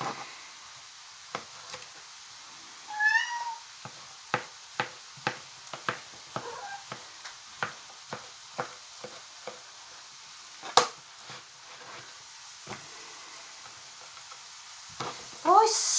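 Knife chopping bolete mushrooms on a cutting board, sharp chops about two or three a second, with one louder knock about eleven seconds in. A cat meows once, briefly, about three seconds in.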